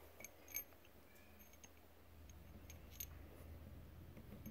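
Near silence: room tone with a low hum and a few faint, small clicks.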